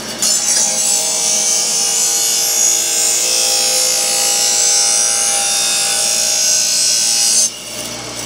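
Steel lawn mower blade ground on the wheel of a running MAT bench grinder: a loud, steady hissing grind with a hum underneath. The blade goes onto the wheel just after the start and comes off suddenly near the end, leaving the grinder running.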